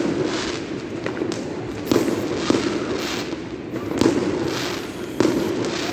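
Fireworks going off: a string of sharp bangs, about five in six seconds, over continuous crackling.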